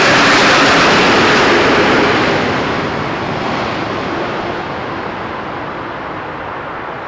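An airliner passing close, its engine noise loud at first and then fading from about two seconds in as it moves away, the high hiss dying off first.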